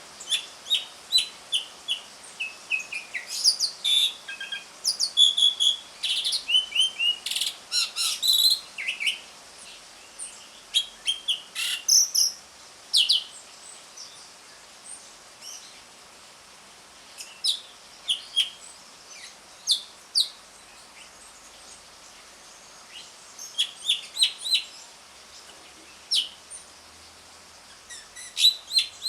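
Javan pied starling (jalak suren) calling: quick runs of short chirps, whistles and harsh notes, thick for the first dozen seconds, then scattered with long pauses, and busy again near the end.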